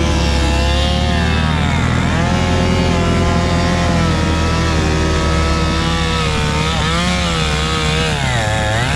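A two-stroke chainsaw running at high revs, its pitch dropping and climbing back about two seconds in and again near the end. Beneath it, the Minneapolis Moline U302 tractor engine runs steadily.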